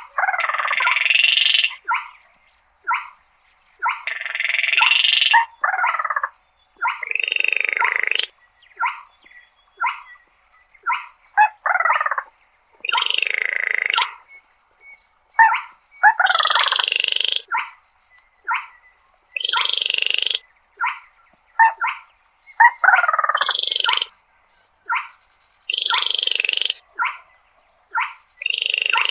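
A small crake, the quốc lùn, calling over and over: calls about a second long repeat every two to three seconds, with short single notes in between.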